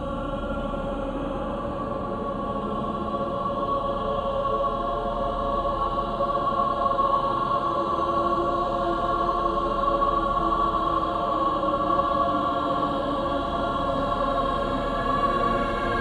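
Haunting choir singing long, held notes in slow, wordless chords, swelling a little louder over the first several seconds and then holding steady.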